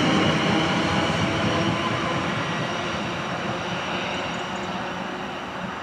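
South Western Railway Class 444 electric multiple unit running away down the line. The wheel and rail noise fades steadily as it recedes.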